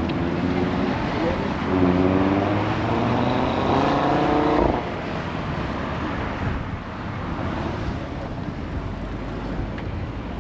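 A motor vehicle's engine accelerating, its pitch climbing for about four seconds and then dropping away suddenly, followed by steady street noise.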